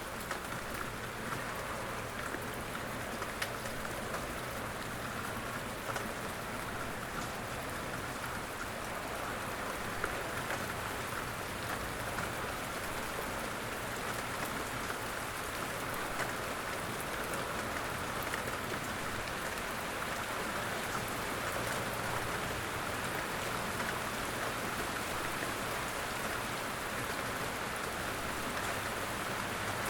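Steady rain falling, an even hiss with occasional sharper ticks of single drops striking.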